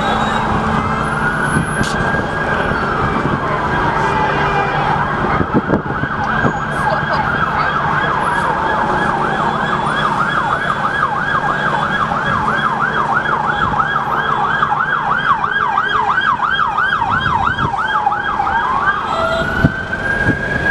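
Emergency vehicle siren in a slow wail that rises and falls about every two seconds. About halfway through it switches to a fast yelp of several sweeps a second, then goes back to the slow wail near the end, with a steady low engine hum of traffic underneath.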